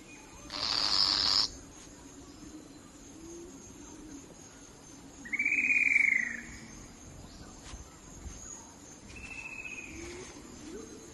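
Rainforest birds calling: a harsh, rasping call about half a second in, then a clear whistled note that rises and falls around the middle and a fainter one near the end, over a faint steady insect drone.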